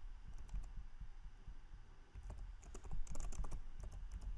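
Computer keyboard typing in short runs of keystrokes. A few clicks come near the start, then a short lull, then a quicker run of keystrokes from about two seconds in.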